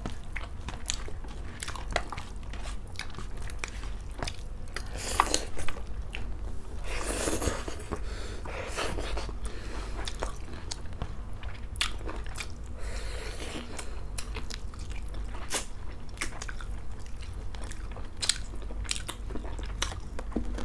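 Close-up eating sounds of two people eating rice and chicken curry by hand: chewing and biting, with many short sharp clicks throughout and a longer noisy stretch about seven seconds in.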